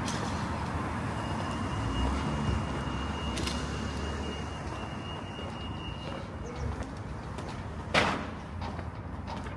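Town street ambience: steady traffic noise from cars on the road. A faint high steady tone lasts a few seconds midway, and a single sharp clank comes near the end.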